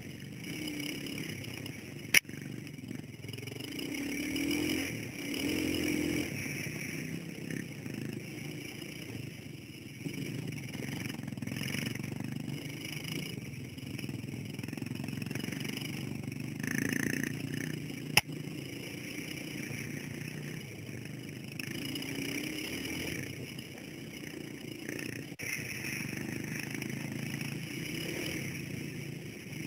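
Dirt bike engine running as heard from the rider's helmet camera, its pitch rising and falling as the throttle opens and closes over rough track. Two sharp knocks stand out, one about two seconds in and another about eighteen seconds in.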